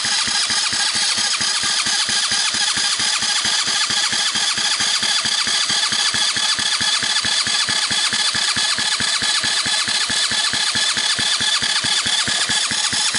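A 125cc single-cylinder ATV engine being cranked over by its electric starter for a compression test, with a compression gauge in the spark plug hole, so it turns over without firing. It makes a steady, fast, even pulse from each compression stroke.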